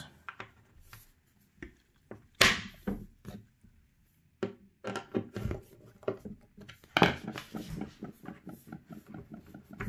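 Small metal connecting fittings being handled and turned with a hand screwdriver in the wooden panels of an IKEA PAX wardrobe: irregular clicks, knocks and scrapes of metal on wood, the loudest about two and a half seconds in.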